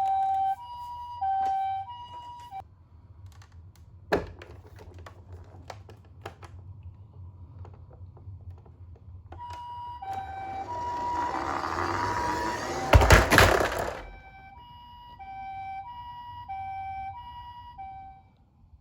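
Toy ambulance minicar's electronic two-tone siren, a high and a low note alternating, sounding in three stretches. Between them come clicks and knocks, then a swelling rolling rattle about halfway through as the toy runs down a slope, and a loud clatter of knocks about two-thirds in.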